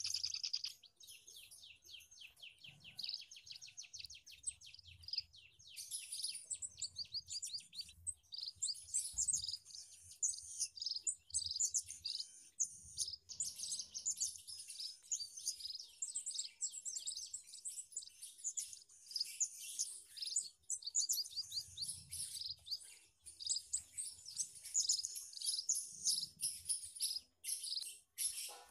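Munias (small estrildid finches) chirping and twittering in an aviary. Many high, thin calls overlap throughout, with a rapid trill of evenly repeated notes in the first few seconds.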